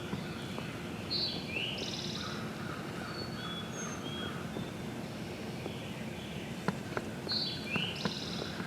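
A songbird singing a short song of a high note, a sliding note and a buzzy trill, twice about six seconds apart, with other faint bird chirps between, over a steady outdoor background. A few light clicks come near the end.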